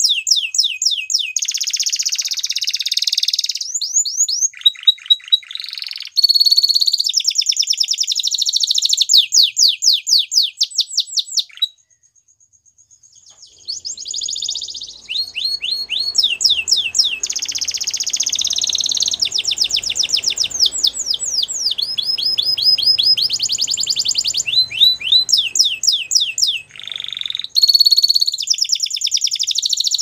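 A canary singing a long song of trills and rolls, each phrase a fast run of quickly repeated notes, with one short pause about twelve seconds in.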